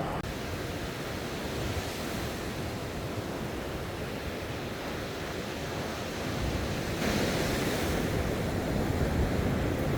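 Sea waves and surf washing, with wind buffeting the microphone; the wash swells louder about seven seconds in.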